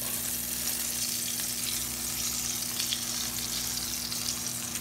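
Flour-dredged whiting fillets frying in hot grease in a cast-iron skillet, a steady sizzle as the freshly dropped fish cooks.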